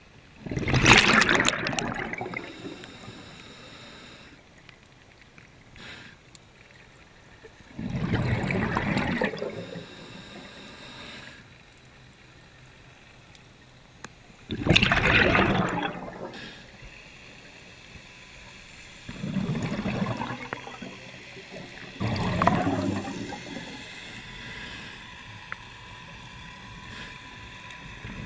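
Scuba diver's exhaled bubbles gurgling out of the regulator underwater, in five separate breaths each a second or two long, with quieter stretches between them.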